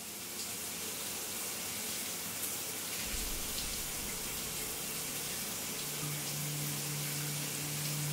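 Shower running: water spraying from a showerhead into a tiled shower, a steady even hiss. A low steady drone comes in about six seconds in.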